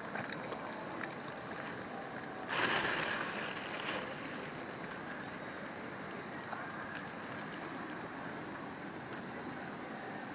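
Steady rushing noise of a flowing river, with a louder rush about two and a half seconds in that lasts about a second and a half.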